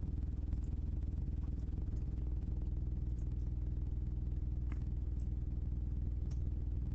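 Steady low electrical hum in the recording, with a few faint clicks, the clearest about two-thirds of the way through and again near the end.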